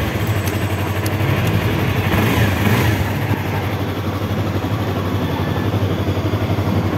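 Yamaha YZF-R3's 321 cc parallel-twin engine idling steadily, a fast, even low pulse with no revving.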